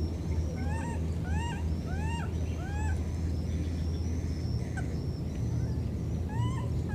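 An animal's short, high calls, each rising and then falling in pitch, repeated four times in quick succession and twice more near the end, over a steady low rumble.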